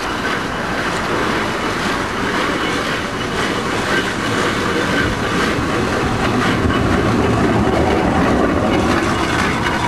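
Grenville steam carriage running along the road, heard from on board: a steady mechanical clatter from its engine and wheels.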